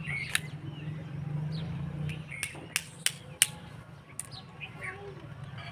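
Screwdriver tip striking the plastic diaphragm of a stethoscope chest piece: several sharp clicks, bunched around the middle, as the diaphragm is punctured and torn. Birds chirping in the background.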